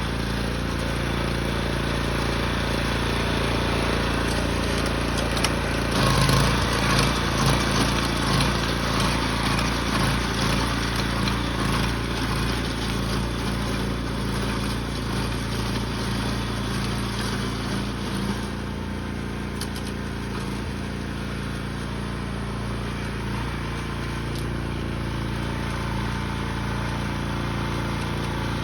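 A small engine of a snow-clearing machine running steadily. It gets louder and rougher for several seconds about a fifth of the way in, as if under more load, then drops to a quieter, even run about two-thirds through.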